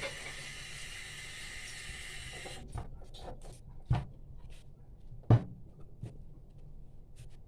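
Kitchen prep sounds: a steady hiss that cuts off suddenly about two and a half seconds in, then scattered light knocks and taps, the loudest a little past five seconds in, from a knife and cutting board as garlic is cut.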